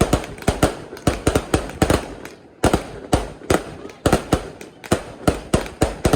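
Fireworks display: sharp bangs follow each other quickly and irregularly, about four a second, with a brief lull about two and a half seconds in.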